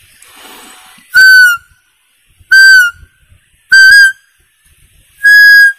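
Homemade bamboo barking-deer (muntjac) fawn call blown four times: short, high, whistle-like bleats, the first three dipping slightly in pitch at their ends, the last one longer and level. The tone is not yet right; the maker judges the bamboo still needs thinning.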